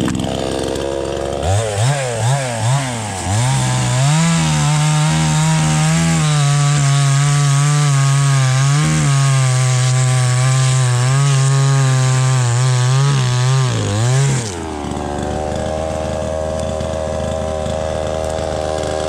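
Small two-stroke gas chainsaw blipped up and down a few times, then held at full throttle for about ten seconds as it cuts through a log, its pitch wavering under load. It then drops back to a steady idle.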